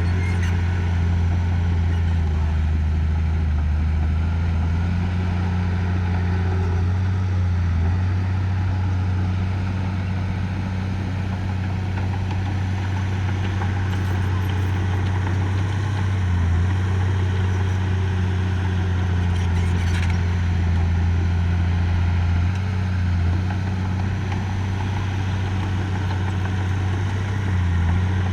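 Heavy-equipment diesel engine running steadily, its pitch dipping briefly now and then.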